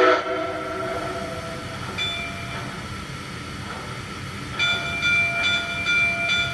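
Model steam locomotive's onboard sound system playing locomotive sounds as it starts off on rollers: a whistle blast ends just at the start, then steady running sound, and from about four and a half seconds in a high ringing tone repeats steadily.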